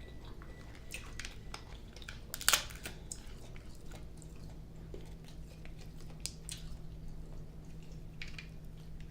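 Close-up eating sounds: chewing, with scattered clicks and crackles of seafood shells being handled and broken. One sharper crack comes about two and a half seconds in.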